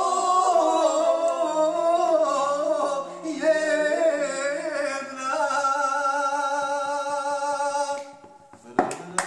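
A man singing a Bosnian folk song unaccompanied, his melody wavering and ornamented, drawing out a long held note that stops about eight seconds in. Hand clapping starts just before the end.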